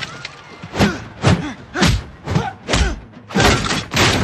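Movie fight-scene sound effects: five short thuds about half a second apart, then a longer, denser crash starting about three and a half seconds in.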